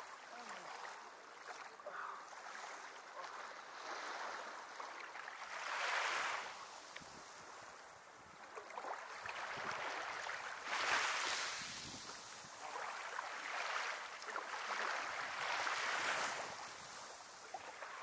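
Small waves washing up onto a sandy beach and drawing back, the wash swelling and fading every few seconds, loudest about six and eleven seconds in.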